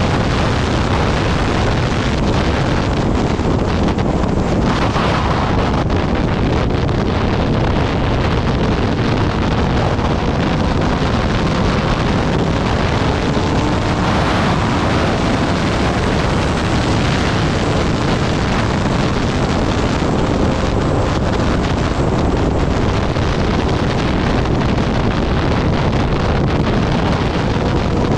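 Steady wind noise on the microphone of a moving Kawasaki Ninja ZX-10R, with its inline-four engine running underneath, the engine's pitch drifting slowly up and down.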